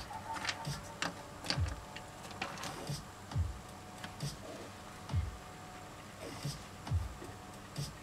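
Wax crayons scratching and tapping on sketch paper in short irregular strokes and clicks. Under them, a soft low thump repeats evenly about every two seconds.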